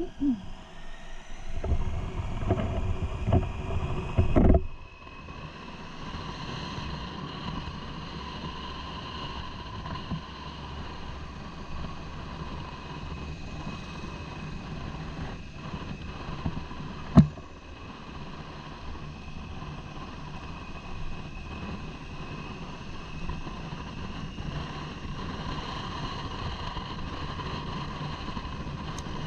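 Motorcycle engine running steadily under way, with wind noise on the helmet microphone; strong wind buffeting in the first few seconds cuts off abruptly about four seconds in. A single sharp knock about halfway through.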